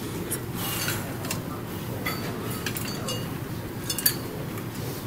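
Steady gym background noise with a handful of light, short clinks and clicks scattered through it, two of them close together about four seconds in.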